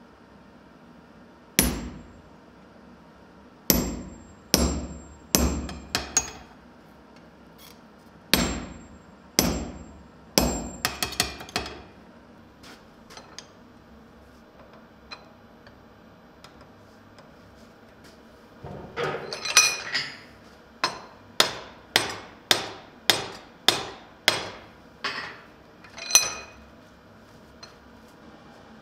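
Hammer blows on hot steel at a blacksmith's anvil, each a sharp strike that rings briefly. A run of separate blows comes first, then a quiet stretch around the middle, then a quicker series of blows near the end.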